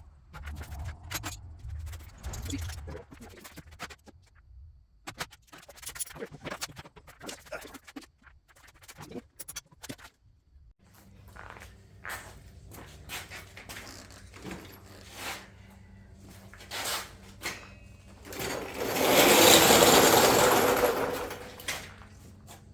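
Scattered clicks, knocks and scrapes of hand tools and plastic body panels being worked loose on an ATV. Near the end comes a loud rushing noise lasting about three seconds.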